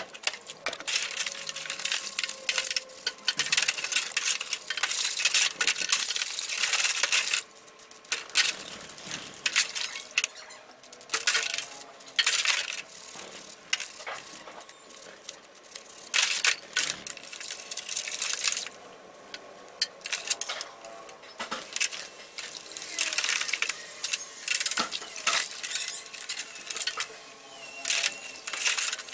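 A wire brush scrubbing rusty air-compressor parts in a basin of soapy water: rapid scratchy strokes in spells, with short pauses and clinks of metal parts against the metal basin.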